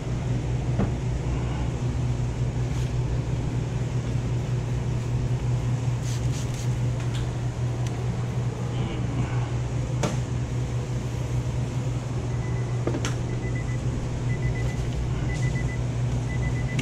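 A steady low machine hum, with a few sharp clicks and knocks. About twelve seconds in, a high beep starts repeating roughly once a second.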